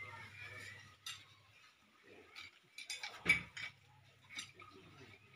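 Scattered light knocks and clinks from work at the rim of a hand-dug well, with one louder knock about three seconds in, over a faint low hum and faint voices.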